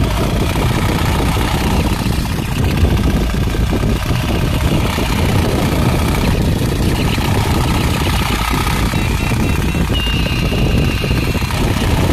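Wind buffeting the microphone: a steady, loud low rumble with no clear rhythm.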